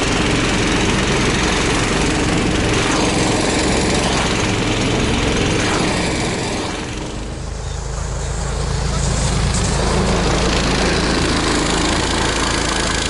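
Snowmobile engine running steadily under way, easing off about seven seconds in and picking up again.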